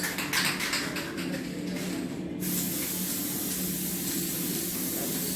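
Steady spraying hiss that comes in choppy pulses for the first two seconds and then runs evenly, over a steady low hum.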